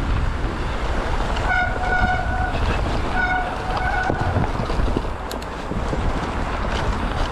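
Wind rushing over the microphone while a mountain bike is being ridden, with a high, steady squeal sounding three times in close succession a second or two in.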